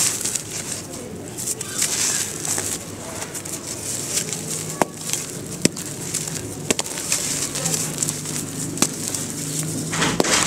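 Dry red dirt lumps crushed and crumbled by hand: a steady gritty crunching and trickle of falling powder and crumbs, with a few sharp snaps about halfway through as chunks break. Pigeons cooing in the background.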